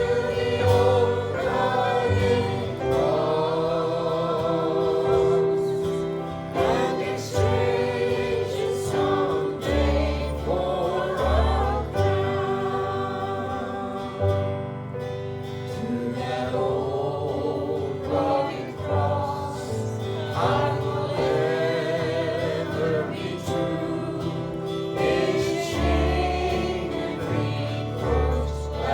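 Group of voices singing a gospel hymn together, with instrumental accompaniment holding low sustained notes underneath.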